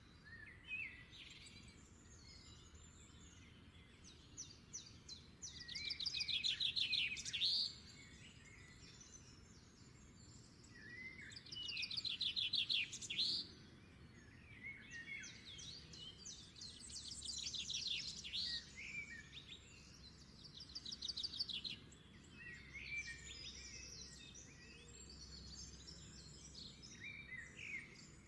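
Small birds singing: three louder bouts of rapid trilled phrases, each a few seconds long, with scattered chirps between.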